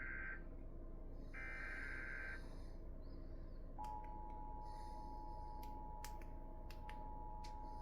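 Emergency Alert System header: the tail of one SAME digital data burst, then a second buzzy burst about a second long. About four seconds in, the steady two-tone EAS attention signal starts, with a few sharp clicks over it. This is the start of a flood warning alert.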